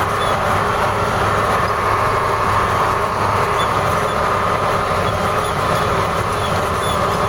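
Steady running noise of a moving vehicle: a constant drone and rumble that holds level, with no change in pitch.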